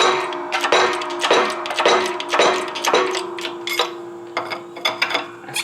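Repeated sharp metallic clinks, each with a lingering ring, about two a second, growing fainter after about three seconds. They come from the steel hub, socket and press as the rear wheel bearing is being pressed out of the hub.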